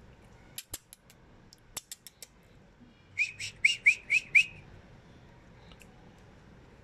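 Puppy giving a quick run of six high-pitched squeaks while play-wrestling with another puppy. A handful of sharp clicks come before it, in the first couple of seconds.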